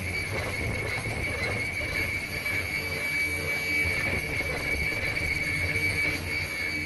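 Zipper bag cutting machine running, with a steady high whine over fast, even mechanical clatter.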